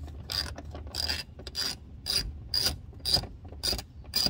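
Ratchet wrench with a 10 mm socket, set to loosen, clicking in even strokes about twice a second as it backs out a bumper screw.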